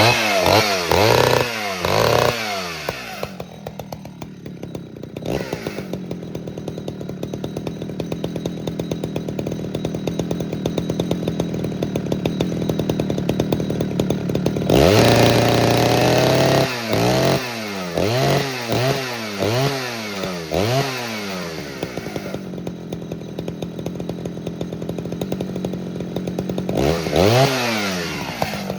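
Poulan 4900 CounterVibe 77cc two-stroke chainsaw running on a freshly rebuilt carburettor with the governor deleted. It idles steadily, and the throttle is blipped in quick revs: several in the first few seconds, a longer rev followed by a string of blips about halfway, and a couple more near the end.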